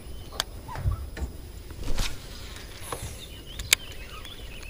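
Baitcasting reel being cranked on a retrieve, with a few sharp clicks. Faint high chirps come in over the last second or so.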